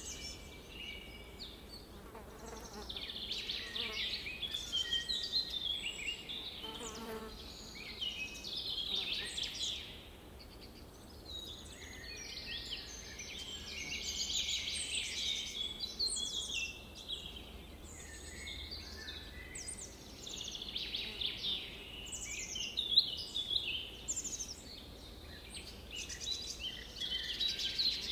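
Background nature ambience of many small birds chirping and twittering in overlapping bouts that swell and fade every few seconds.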